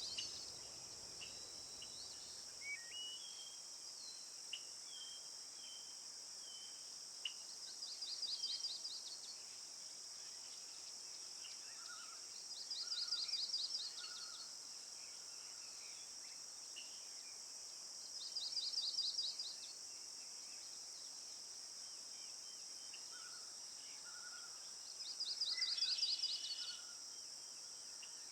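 A steady high insect drone throughout, with a bird singing a short rapid trill four times, about every five to six seconds, and a few scattered chirps between.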